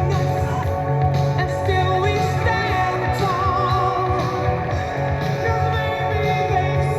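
Recorded song playing: a vocal with vibrato over a steady band accompaniment.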